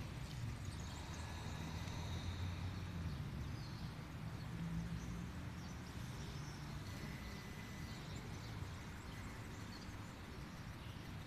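Quiet outdoor ambience: a low, distant rumble that fades after about five seconds, with faint bird chirps now and then.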